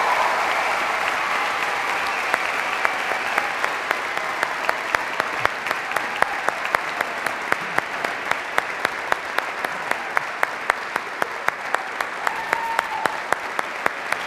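Audience applauding, with some cheering voices at first; from about five seconds in a sharp, regular clap about three times a second stands out over the applause.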